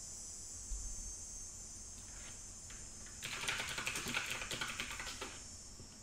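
Typing on a computer keyboard: a few stray keystrokes, then a quick run of rapid keystrokes lasting about two seconds from about halfway in. A steady high-pitched chorus of cicadas runs underneath, and there is a soft low thump near the start.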